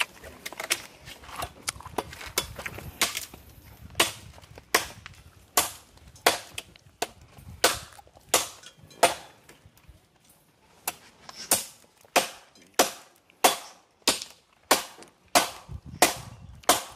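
Wood being chopped: a few faint knocks, then about four seconds in a steady run of sharp chopping strikes, about one every two-thirds of a second, with a short break about ten seconds in.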